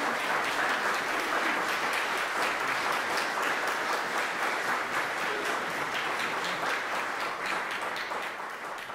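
Audience applause, many hands clapping steadily after a choir's song and growing quieter near the end.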